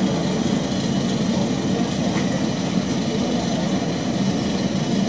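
Steady low hum inside the cabin of a parked Airbus A321-211, heard from a front window seat, with no change in level throughout.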